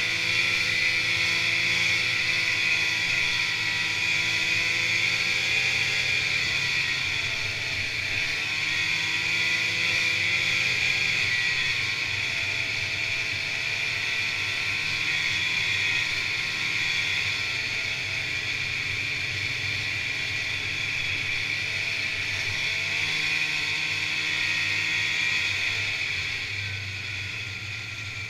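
Snowmobile engine running at trail speed, its pitch drifting gently up and down over a steady hiss. The engine eases off near the end.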